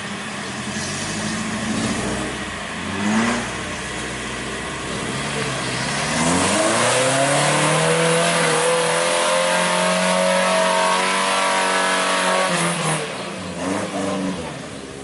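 Off-road jeep's engine revving hard in deep mud: a short blip about three seconds in, then the revs climb at about six seconds, hold high for some six seconds and drop away.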